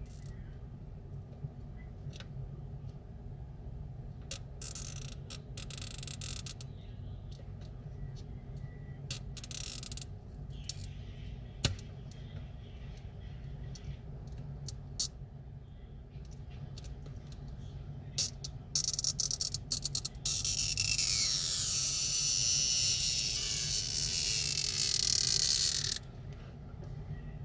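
Small tools working on an iPhone 6S during a battery replacement: scattered clicks and taps, short bursts of scraping, and a longer, louder scraping stretch near the end, over a steady low hum.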